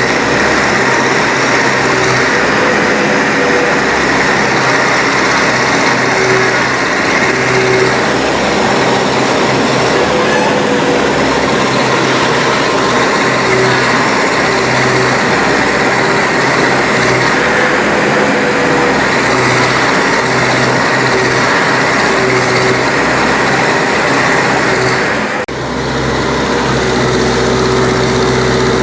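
Backhoe loader's diesel engine running steadily under working load, its note shifting up and down every few seconds, with a brief dip in level near the end.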